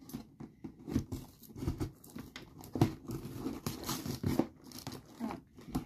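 Scissors cutting and a strip of tape being torn and peeled off the edge of a cardboard box, with irregular scraping and tearing.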